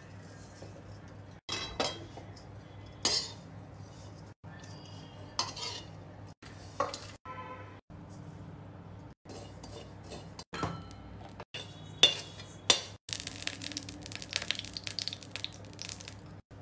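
Cooking sounds from a run of short edited clips: dry ingredients poured and stirred in a metal kadhai, with scattered clinks and scrapes of a spoon against the pan over a low steady hum. Near the end comes a dense crackling sizzle as ghee melts in the hot kadhai.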